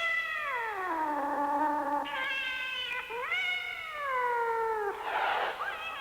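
Cat caterwauling: about three long, drawn-out yowls, each sliding down in pitch and partly overlapping, then a short hiss near the end.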